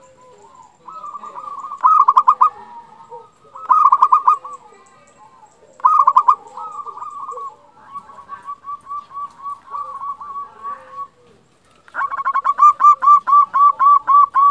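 Zebra dove (perkutut) cooing: short phrases of quick, stuttering notes about every two seconds, then a softer string of repeated notes, and near the end a loud, fast run of even cooing notes.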